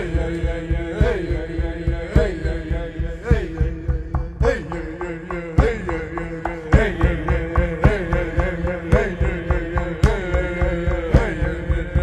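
Music with a steady drum beat about once a second and a chant-like vocal line over held drone tones.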